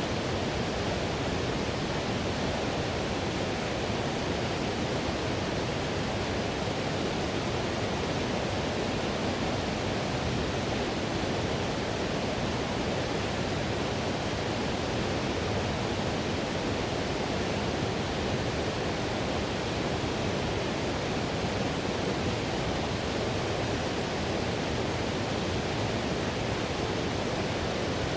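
Whitewater river rushing steadily, a continuous even roar of water over rapids with no changes or distinct events.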